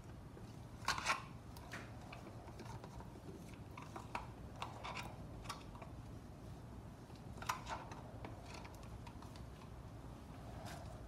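A thin stir stick scraping and clicking against the inside of a plastic cup as the last of the resin is scraped out, in scattered small strokes; the two loudest come about a second in and near the eight-second mark.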